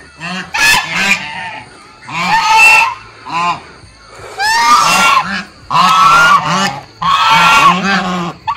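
A small flock of white domestic geese honking repeatedly, one loud call after another with short breaks in between.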